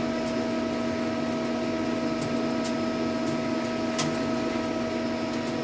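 CNC lathe standing idle with its spindle stopped after the program has ended, its drives and auxiliaries giving a steady hum made of several constant tones. A few faint ticks sound about halfway through.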